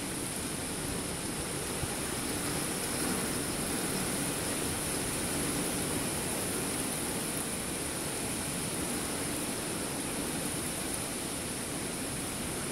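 Heavy thunderstorm rain pouring down steadily, an even, unbroken rushing hiss.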